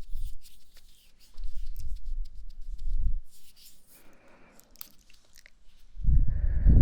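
Close-miked ASMR trigger sounds: muffled rubbing and scratching right on the microphone, in several bursts, with a louder, longer stretch starting near the end.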